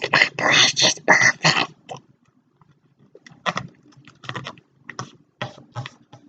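A sheet of paper being handled and creased while a paper airplane is folded: a run of loud crinkling rustles, then a pause, then scattered short crackles as the folds are pressed down.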